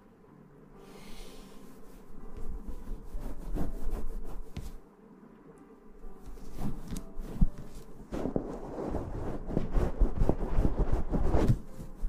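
A soft fluffy puff rubbed and brushed against the microphone, giving a scratchy rustling in two spells: from about two seconds in, then again from about six seconds in until just before the end.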